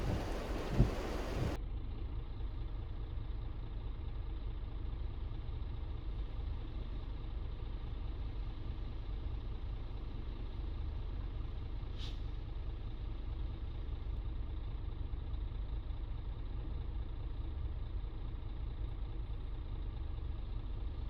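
Steady low rumble of a moving vehicle, heard from inside, with a single sharp click about halfway through.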